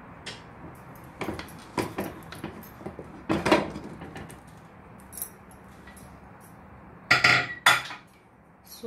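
Aluminium pressure cooker lid being worked free and lifted out of the pot: a run of metal clanks and scrapes, the loudest near the middle and two more loud clanks near the end.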